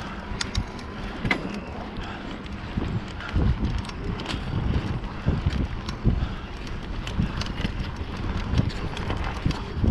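Mountain bike ridden over a dirt forest trail: wind buffeting the microphone over a low tyre rumble, with irregular rattles and clicks from the bike as it jolts over bumps, getting rougher and louder about three seconds in.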